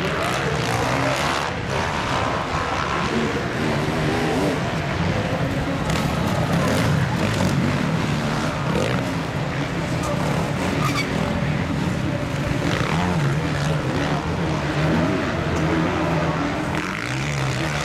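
Motocross-track ambience: engines running with a wavering pitch, over the chatter of a large outdoor crowd of spectators.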